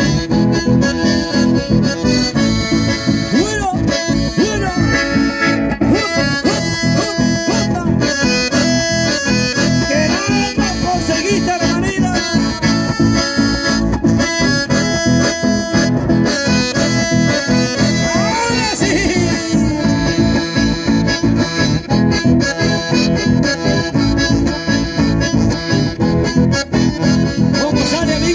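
Live chamamé played on two accordions over strummed acoustic guitars: a lively instrumental passage with a steady, driving rhythm, heard through the stage PA.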